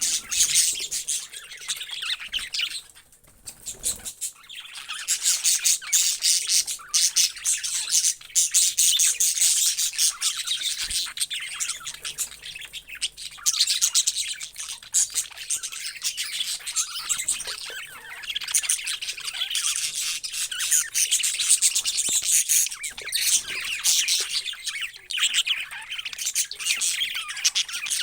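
Many parrots chirping and chattering together in a dense, continuous high-pitched twitter, with a brief lull about three seconds in.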